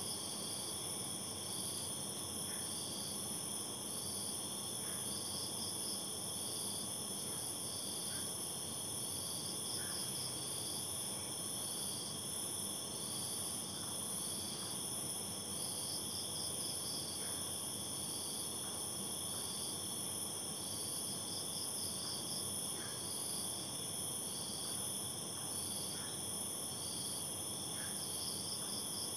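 Night insect chorus: several steady high-pitched trills, with a pulsed chirping that repeats every second or two over a faint hiss.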